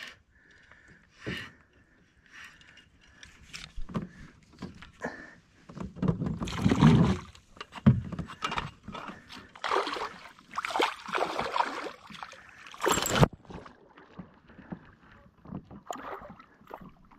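Irregular splashing and sloshing water beside a fishing kayak as a hooked smallmouth bass fights near the surface, mixed with knocks and rustles from the angler's handling. The noisiest stretch runs from about six to thirteen seconds in and ends in a sharp splash.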